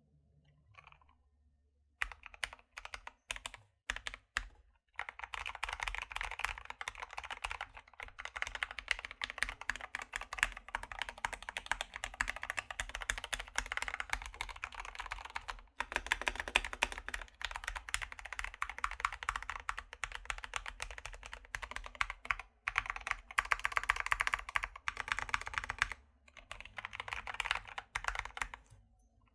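Fast, continuous typing on a Keychron K2 V2 aluminium-body mechanical keyboard fitted with lubed Gateron Brown switches, clipped and lubed stabilizers, MT3 keycaps and foam inside the case. The typing starts about two seconds in, runs as a dense stream of key clicks with a few brief pauses, and stops just before the end.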